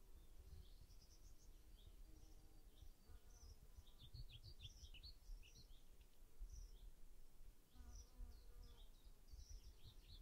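Faint birdsong: many short, high chirps from several birds, over a low rumble.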